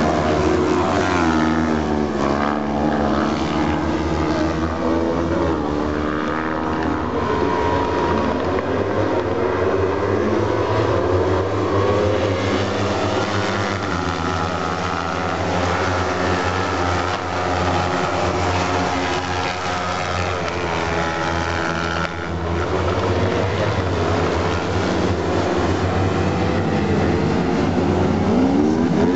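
Engines of several autocross sprint-car buggies racing together, their pitch rising and falling as they rev through the gears and lift for corners.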